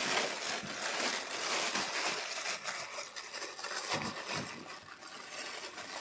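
Thin plastic bag crinkling and rustling as it is pulled off a camera body by hand, with irregular crackles and a couple of sharper ones about four seconds in.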